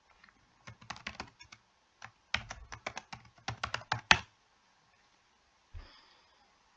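Typing on a computer keyboard: a short run of keystrokes about a second in, then a longer, quicker run ending in one louder key press about four seconds in. A single soft thump comes near the end.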